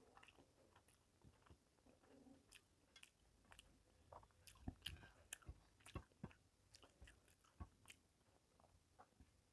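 Faint chewing and wet mouth clicks of a person eating rice and fish curry: a scatter of short clicks that come thicker about halfway through.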